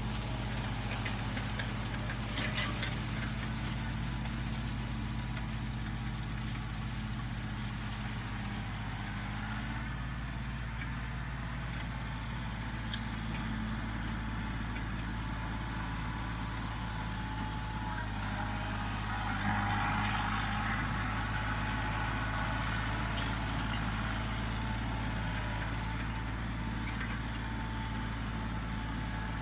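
Kioti CK3510SE compact tractor's diesel engine running steadily, with a short louder rush of noise about twenty seconds in.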